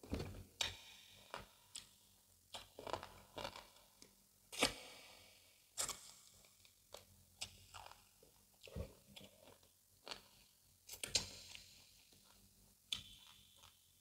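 Close-miked eating of egusi soup with fufu: chewing with irregular sharp mouth clicks and smacks, the loudest just at the start and about four and a half seconds in.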